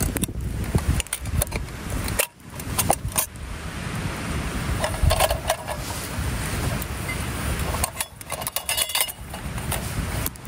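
Light metallic clinks and rattles of a brass oil lantern's glass globe and wire guard being handled, scattered through a steady rushing background noise.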